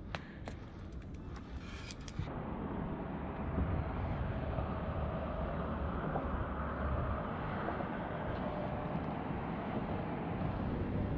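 Road traffic passing on the bridge: a steady rumble with tyre noise that gets louder about two seconds in.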